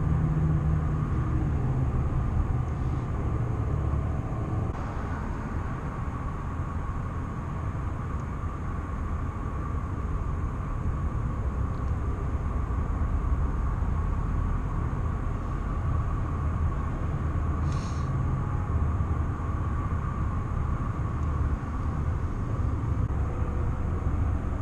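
Wind buffeting the microphone in a steady low rumble, with a light clink of cookware about eighteen seconds in.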